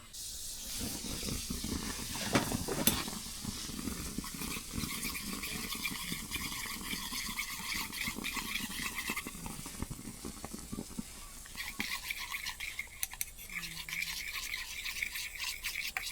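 A utensil stirring and scraping rapidly inside a small metal ladle or pan, a continuous scratchy rasp with many small ticks. This is typical of sugar being stirred as it melts for dalgona.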